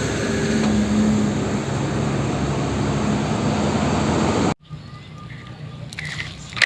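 Truck engine running steadily, a loud rumble that cuts off abruptly about four and a half seconds in, followed by quieter background sounds.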